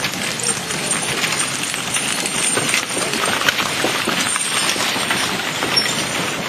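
Horses' hooves clip-clopping as a horse-drawn wagon train passes: a steady run of irregular sharp knocks.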